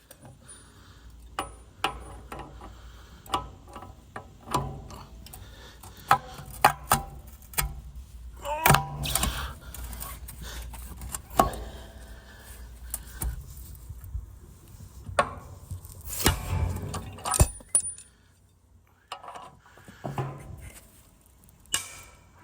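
Irregular sharp metallic clinks and knocks with short ringing, from steel tools working at a seized, heavily corroded bolt in an MX5's rear hub and wishbone. There are louder clattering spells about nine seconds in and again around sixteen seconds.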